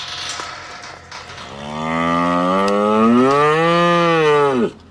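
A Brangus cow moos once, a long call of about three seconds that rises and then falls in pitch. A second of rustling noise comes before it.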